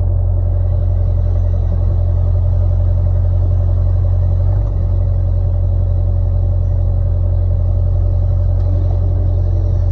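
Excavator diesel engine running steadily with a deep, even rumble.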